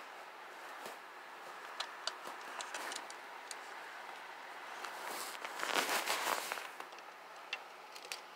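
Handling noise as the button assembly of an animatronic toy is put back together: scattered light clicks of plastic parts and a rustling scrape of about a second just past the middle.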